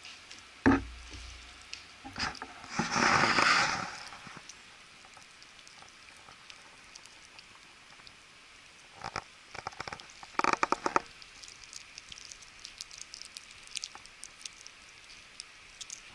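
Teething Yorkshire terrier puppy gnawing a chew bone: scattered clicks and scrapes of teeth on the bone. A thump comes about a second in, a longer rustling scuffle around three seconds in, and a quick flurry of clicks around ten seconds.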